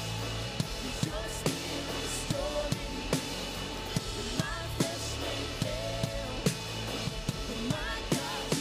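Live worship band music heard from the drum kit: close-miked kick, snare and cymbals keep a steady beat under the band, with sung vocal lines coming in and out over it.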